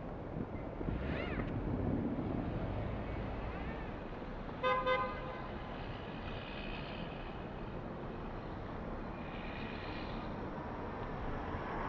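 City street traffic rumbling steadily, with a car horn giving two short toots in quick succession about five seconds in.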